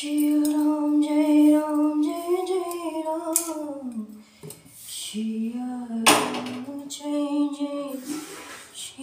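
A woman singing a slow devotional chant in long held notes that glide down in pitch, with a short clatter about six seconds in.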